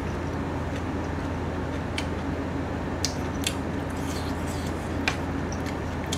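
Close-miked chewing of a mouthful of Chapagetti instant noodles, with a few short, sharp wet clicks about two, three and five seconds in, over a steady low hum.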